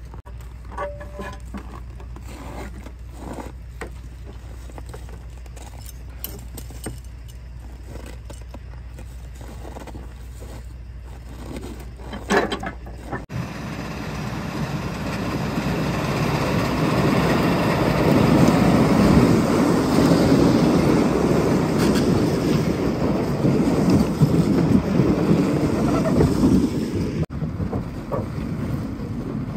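Log truck's engine idling with scattered clicks and scrapes. About 13 seconds in it cuts to a much louder, steady rushing noise of the truck driving.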